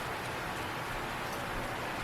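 A steady, even hiss of background noise with no distinct events in it.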